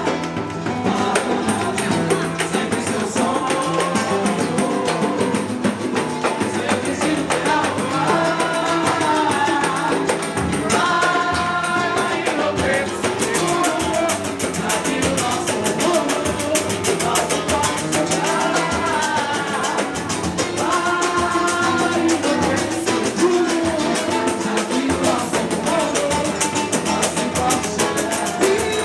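Samba-pagode music: singing over a dense, steady beat of hand percussion with tambourine-like jingles.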